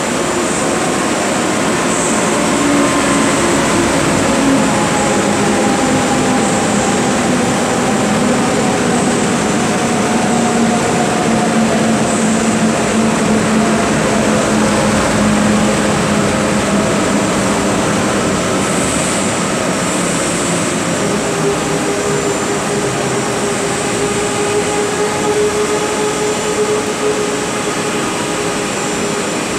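ICE T (DB Class 411) electric tilting train running along the platform track, a steady loud rumble of wheels on rail with a faint electric whine that slowly falls in pitch.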